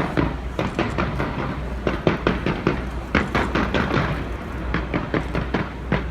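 Fireworks going off in a quick, irregular run of sharp pops and bangs.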